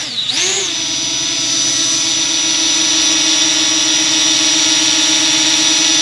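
Parrot Anafi quadcopter's propellers and motors whining as it hovers close by. The pitch dips and climbs back in the first half-second, then holds steady.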